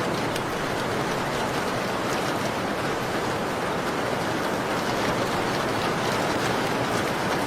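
Steady rain falling, an even hiss, with scattered faint sharp crackles throughout.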